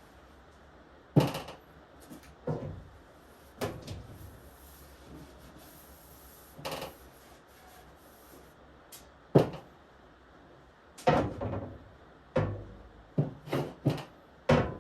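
Wooden timber-carrier handle being handled and wiped down with towels: irregular knocks and thumps of wood, about a dozen, with rubbing between. The knocks bunch together near the end.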